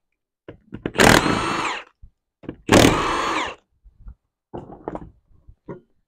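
Cordless impact wrench run in two short bursts of under a second each, loosening the ATV's rear wheel lug nuts, followed by a few light clicks and knocks as the loosened nuts and wheel are handled.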